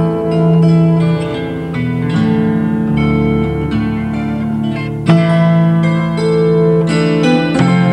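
Large kantele being plucked: ringing melody notes over sustained chords, with a strongly struck chord about five seconds in.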